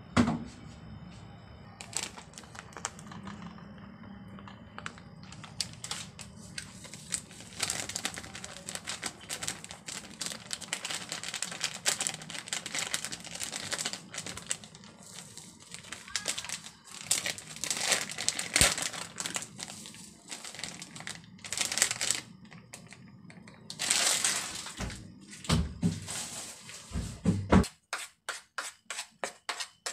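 Crinkling and rustling as flour is handled and poured onto a plate, then a fork scraping back and forth on the plate as it stirs the flour, in quick even strokes about four a second near the end.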